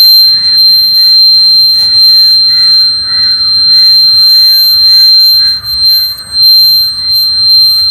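A small electronic buzzer in a homemade cardboard doorbell sounding one steady, high-pitched tone as the doorbell is tested.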